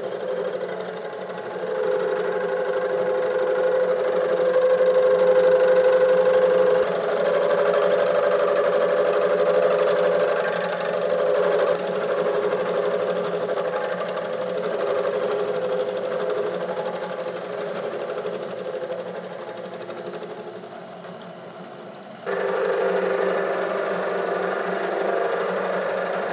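Bridgeport milling machine's two-flute end mill side-cutting cast iron at about 500 RPM, chattering, with a steady ringing tone. The cut's sound shifts several times and changes abruptly about 22 seconds in.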